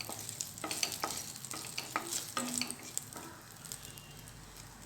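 Tamarind frying in a little oil in a kadai, sizzling as it is stirred, with short scrapes and taps against the pan. The stirring eases off after about three seconds, leaving a fainter sizzle.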